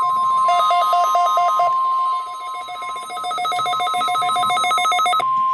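NOAA Weather Radio warning alarm tone: a loud, steady single tone near 1 kHz. Over it a rapid two-note electronic beeping comes in short runs, slower early on, then faster from about three seconds in, and stops abruptly about five seconds in.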